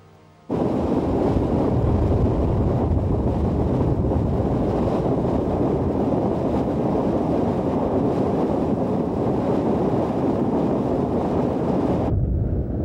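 Steady rushing noise of steam jetting from a geothermal steam vent, starting abruptly about half a second in. Near the end it drops to a duller, lower rush.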